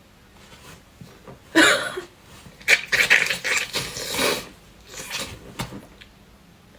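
A person sneezing and sniffing in sharp, breathy bursts: one about a second and a half in, then a longer run of breathy gasps and sneezes, and two short ones near the end.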